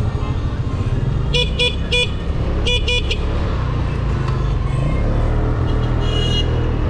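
Vehicle horn tooting five short beeps in two quick bursts, about a second and a half and three seconds in, with a fainter beep near the end. Under it runs the steady low rumble of the moving Keeway Vieste 175 scooter, engine and wind.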